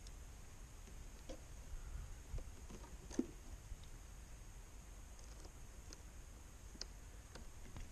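Faint, scattered clicks and light handling noises as a positive power cable's terminal and red rubber boot are fitted by hand, with the sharpest click about three seconds in.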